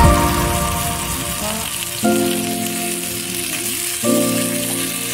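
Skate wing frying in oil in a hot pan, a steady sizzle, under background music whose held chords change about two and four seconds in.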